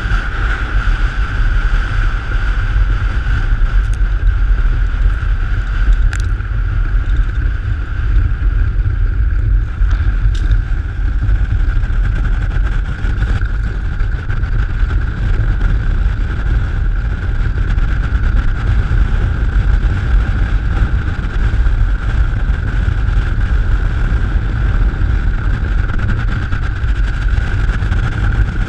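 Wind buffeting the microphone in a heavy, steady rumble, with a steady high hum running through it and a few faint ticks in the first ten seconds.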